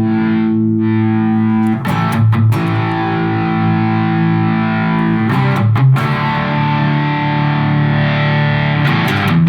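Overdriven electric guitar through a Korg compressor and a Carl Martin Contour & Boost pedal, letting distorted chords ring and striking them again about every three to four seconds. The pedal's high-pass and low-pass filters are trimming the lows and highs of the tone.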